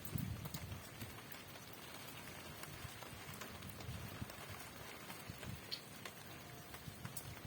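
Rain falling: a faint steady hiss with many scattered drops ticking and knocking irregularly. A brief low gust of wind rumbles on the microphone at the start.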